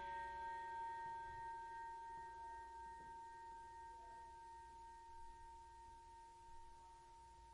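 Boxing bell ringing out after a single strike, several steady tones slowly fading away.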